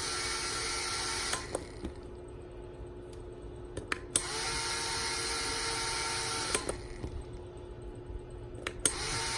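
Push-button switch clicking as it is pressed, switching a small electric motor on and off: the motor runs with a steady hiss and whine, stops about a second and a half in, starts again about four seconds in, stops again near six and a half seconds, and starts once more near the end.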